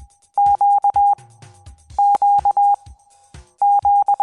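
Morse code letter Q (dah-dah-di-dah) sent three times as a steady high beeping tone, with sharp clicks from the Morse key as it is worked.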